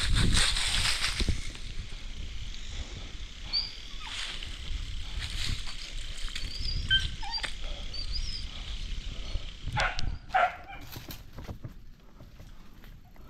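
A dog making short, high whimpering sounds over rustling movement, with a loud rustle at the start and a few sharp knocks about ten seconds in.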